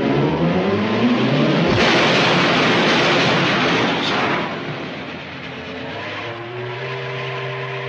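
Cartoon soundtrack: a tone rising in pitch, then a loud rushing noise lasting about two and a half seconds, then steady held notes.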